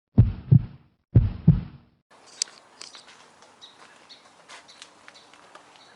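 Two heavy, low double thumps about a second apart, like a heartbeat, in the first two seconds. Faint outdoor ambience follows, with scattered sharp ticks and cracks and a few short, high chirps.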